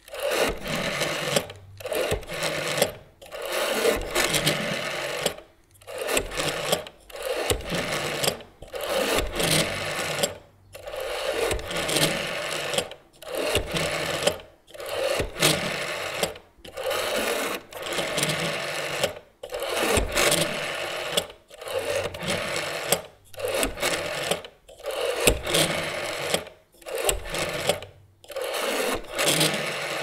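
Rotary telephone dial being turned and released again and again, digit after digit: each release a whirring, clicking spin-back lasting about a second, with short pauses between digits.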